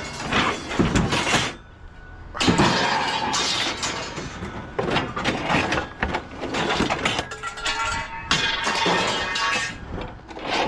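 Scrap metal being handled: irregular clanks, rattles and scraping, with a brief pause about two seconds in and a short ringing scrape near the end.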